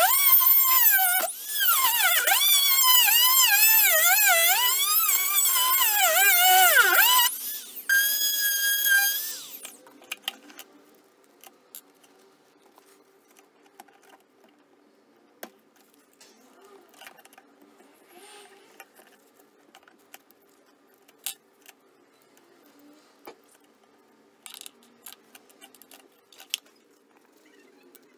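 Handheld rotary tool with a small cutting disc whining as it cuts into a flash drive's metal casing, its pitch wavering as the disc bites into the metal; about seven seconds in it runs steadier for a couple of seconds, then stops. After that, faint clicks and taps of the metal casing being pried and handled.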